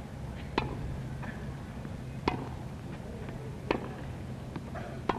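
Tennis ball struck back and forth by wooden rackets in a rally: four sharp pops about a second and a half apart, over a steady low hum.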